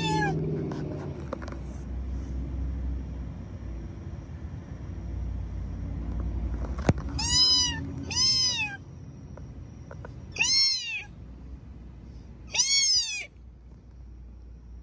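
Meows: one trailing off at the very start, then four more in the second half, each rising and then falling in pitch. A low rumble runs under the first half, and a single sharp click comes just before the first of the four.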